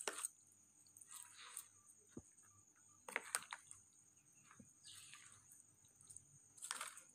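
Plastic spoon stirring thick yogurt with shredded cabbage and vegetables in a steel tray: faint wet squelches and scrapes, about five short strokes with small clicks between.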